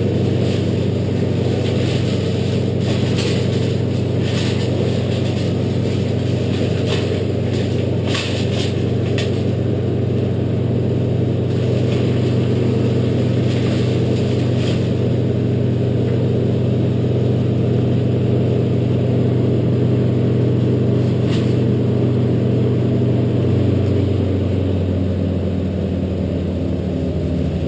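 An engine running steadily, its pitch stepping down slightly about 23 seconds in, with scattered short clicks and rustles over the first half.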